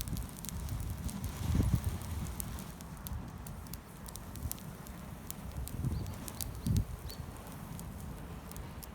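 Wood campfire burning, crackling with scattered sharp pops over a low rumble, with a couple of dull low thumps.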